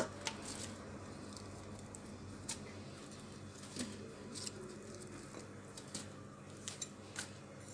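Faint, scattered soft taps and rustles of sliced onion rings being laid by hand into a metal pressure cooker, with a sharper knock right at the start and a few light clicks later.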